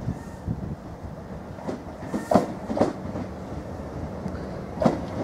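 Class 387 Electrostar electric multiple unit arriving at the platform: a steady low hum with its wheels clacking over rail joints several times at uneven intervals.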